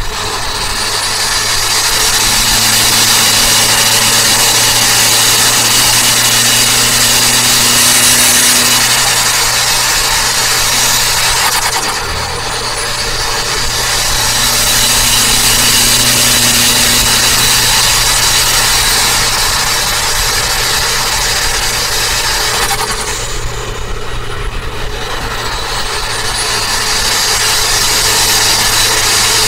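Turbocharged Toyota Avanza at highway speed, heard from inside the cabin: engine, road and wind noise with a steady low drone. The noise eases off about twelve seconds in and again about twenty-three seconds in, and each time it builds back up a high whine climbs in pitch.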